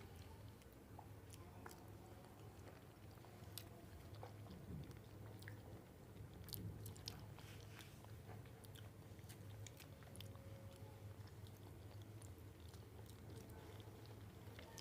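Faint chewing and biting of bananas, with scattered small clicks from the mouth, over a steady low hum.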